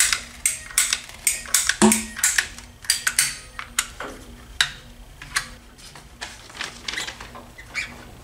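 PVC pipe cutter working through a rubber radiator hose: a run of sharp, irregular clicks, denser and louder in the first half, with one heavier snap about two seconds in.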